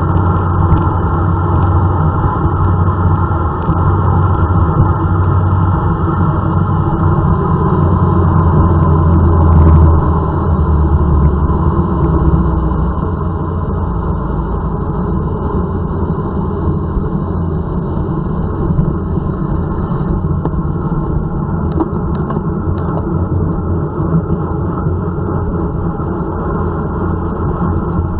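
Wind rushing over the bike-mounted camera's microphone during a high-speed road-bike descent: a loud, steady low rumble that eases off somewhat about halfway through.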